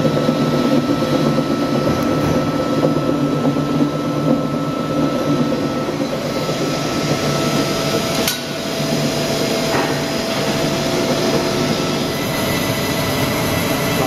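Industrial roller coffee grinder running and grinding coffee beans: a steady, loud mechanical whir with several steady hum tones. A single sharp click comes about eight seconds in, after which the running is slightly quieter.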